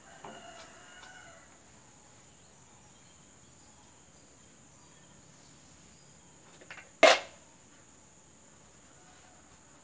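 A single short, sharp knock about seven seconds in, just after a couple of faint clicks, over a low steady hiss. Near the start there are faint, brief high-pitched calls.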